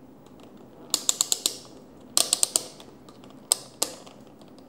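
Rotary range selector of a DT9205A digital multimeter being turned, its detents clicking. There are two quick runs of about five clicks each, about one and two seconds in, then two single clicks as the dial is set to the 20 V DC range.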